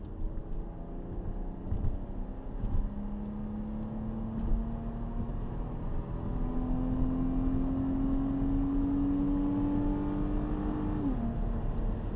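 Cabin sound of a 2012 Ford Fusion Sport's 3.5-litre V6 exhaust with the resonator deleted, accelerating up to highway speed. A low engine drone rises slowly in pitch and grows louder, then drops sharply near the end, over steady road noise.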